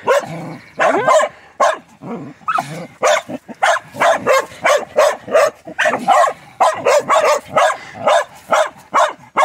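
Hunting dogs barking at a burrow where quarry has gone to ground: a few rising yelps at first, then a steady run of sharp barks about three a second.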